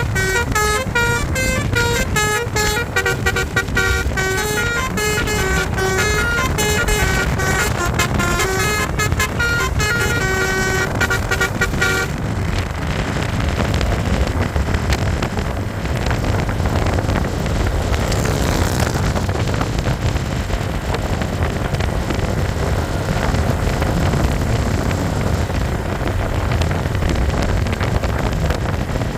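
Basuri 'telolet' musical bus horn playing a quick melody of horn notes, stopping about twelve seconds in. After that, steady vehicle engine and road noise.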